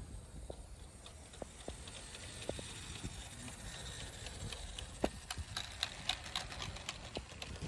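Garden-scale model train passing on outdoor track: the wheels click over the rail joints, the clicks coming quicker and louder from about halfway through as it draws level, over a low rumble.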